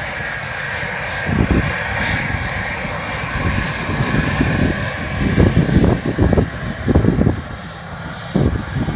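Jet airliner engines running, a steady broad noise with a brighter hissing band high in the mid range, joined by irregular low rumbling surges from about five seconds in.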